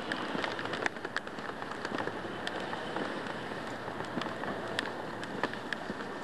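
City street ambience recorded on a handheld camera while walking: a steady rush of traffic noise with irregular crackling clicks.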